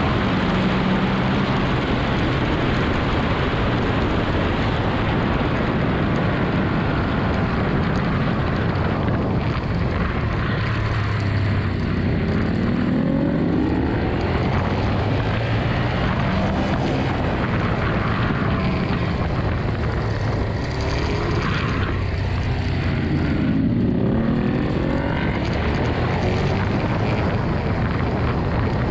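Ducati Monster 1200R's V-twin engine at high revs on a track lap, with heavy wind rush at speed. The engine note drops off into the braking zones and climbs twice, about twelve and twenty-three seconds in, as it accelerates through the gears out of corners.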